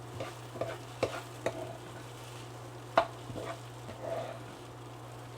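A spoon stirring rice and fried onions in hot oil in a pot, knocking against the pot several times, the loudest knock about three seconds in, over a faint sizzle. A steady low hum runs underneath.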